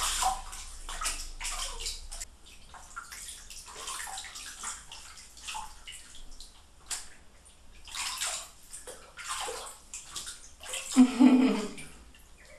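Bathwater sloshing and splashing in irregular bursts as hands move through the water around a cat sitting in a partly filled bathtub. One louder, lower-pitched sound stands out near the end.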